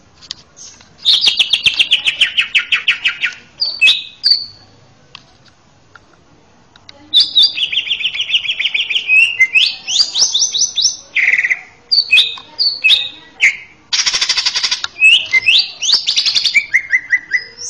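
Male greater green leafbird (cucak ijo) singing: a fast trill of rapid notes falling in pitch, a pause of a few seconds, then a long run of varied quick whistled phrases and trills with a brief dense rattle partway through.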